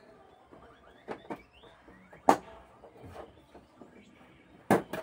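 Handling knocks from a flat-screen LED TV being moved about on a tiled floor: a few sharp, separate knocks, a pair about a second in, the loudest just after two seconds, and two close together near the end.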